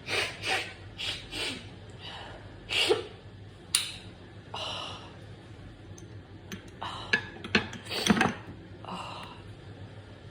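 A person breathing in short, noisy gasps and sniffs during a sneezing fit. A dozen or so sharp bursts come in uneven runs, the loudest about eight seconds in.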